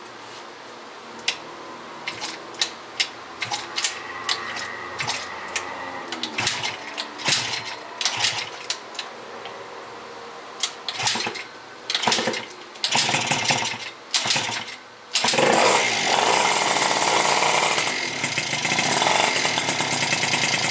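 Freshly rebuilt 70cc two-stroke Yamaha Zuma engine (vertical Minarelli with a Polini Corsa kit) being kicked over again and again, sputtering on a few attempts, then catching about fifteen seconds in and running steadily through a Yasuni expansion-chamber exhaust at a very low idle.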